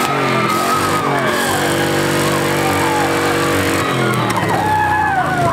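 Demolition-derby pickup truck engine revving up, held at a steady pitch for about two and a half seconds, then dropping back down.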